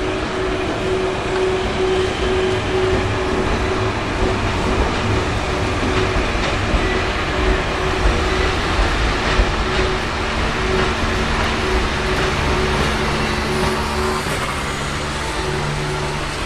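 A level-crossing alarm bell rings in a steady on-off pattern while a train rumbles across the crossing, its wheels clattering on the rails. About ten seconds in, a low steady hum joins the rumble.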